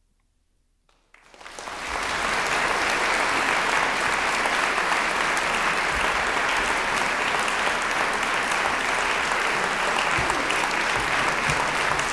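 Audience applause breaking out about a second after the song's last note has died away, swelling quickly and then holding steady.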